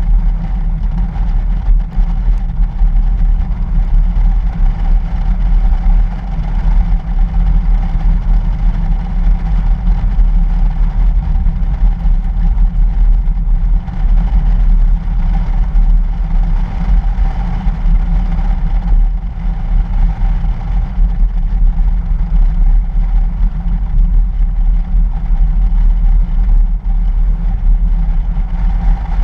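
A 2013 Toyota FJ Cruiser driving steadily on a snow-covered road, recorded from a camera mounted on the outside of the vehicle. Wind rumbling on the microphone covers the engine's running and the tyres on the packed snow, with a faint steady tone throughout.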